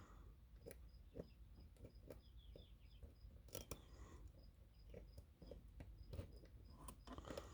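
Faint scattered clicks and ticks of a pick working the pins of a high-security challenge lock under tension, with the core in a false set. Near silence otherwise, with a faint high chirp repeating about three times a second.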